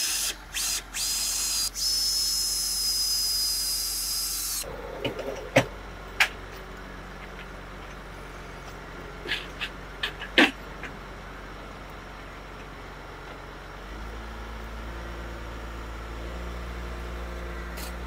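A handheld power tool runs in a few short bursts with a high whine and hiss, then stops. Several sharp wooden knocks follow, and from about three-quarters of the way through a low engine hum sets in as a crane lifts a timber roof panel.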